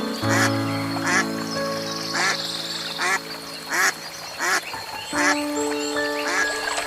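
A farm animal giving short calls about once a second, over background music with long held notes.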